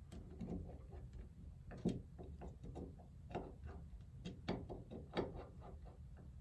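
Small irregular clicks and ticks of a steel nut driver turning and seating tiny brass nuts on the flange of a model steam injector, metal tapping on brass.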